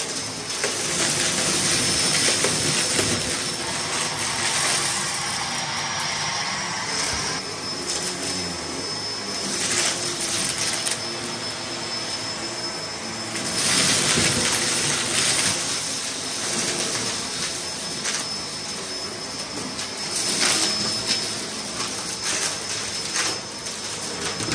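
Cordless stick vacuum running with a steady high whine while its floor head sucks up confetti and sequins from a rug, the pieces rattling and clattering up into the bin. The clatter comes in several louder surges as the head passes over thicker patches.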